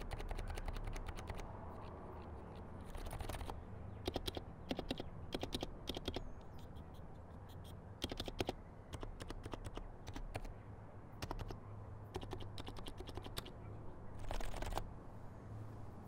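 Typing on a Niz Atom66 electrostatic capacitive keyboard fitted with its stock 35 g switches: short runs of keystrokes with brief pauses between them.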